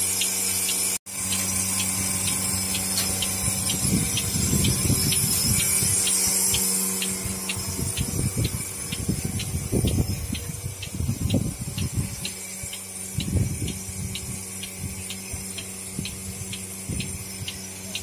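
Portable bucket milking machine running: a steady vacuum-pump hum with its pulsator clicking about twice a second. Irregular low rumbles come and go through the middle.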